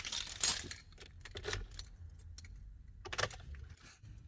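Keys jangling and clicking as they are handled, in a few short rattles: right at the start, around half a second and a second and a half in, and again about three seconds in. This is the immobiliser being disengaged before the van is started.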